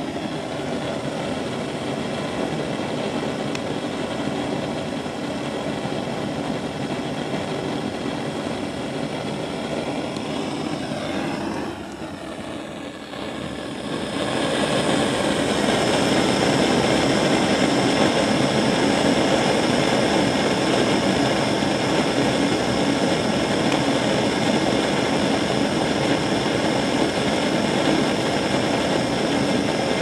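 LPG blowtorch flame burning steadily with a constant rush, heating a homemade steam boiler as it builds pressure. The rush dips briefly a little before halfway, then carries on louder.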